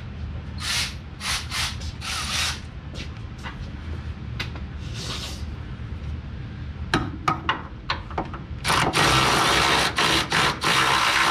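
Scattered clicks and rattles of hand tools, then a power tool on a nut running in short repeated bursts from about three-quarters of the way in; the bolt is thought to be spinning with the nut.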